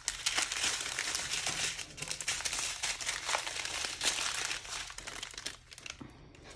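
Plastic packaging of a diamond painting kit crinkling as it is handled, dying away in the last second or so.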